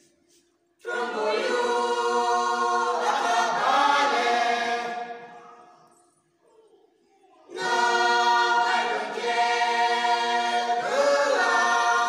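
Group of young men and women singing a folk song together, voices only, in two long phrases of held notes with a pause of about two seconds between them.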